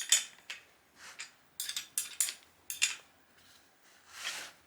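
Irregular metal clicks and clinks of a small hand tool working the seat-post clamp bolt of a balance bike as it is tightened. A softer swell of noise comes near the end.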